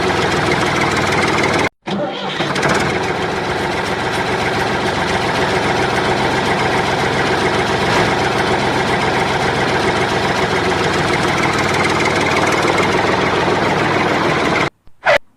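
Engine running steadily, with a brief dropout a couple of seconds in; it cuts off suddenly near the end.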